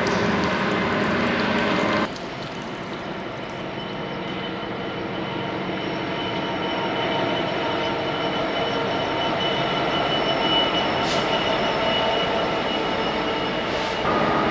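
A passing train running on the line, a steady rumble of wheels on rails with faint held whining tones. About two seconds in the sound cuts abruptly to a quieter train sound that slowly grows louder.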